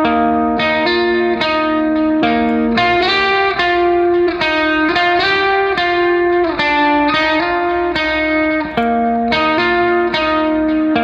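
Background music: a plucked guitar playing a steady melody, one note about every half second.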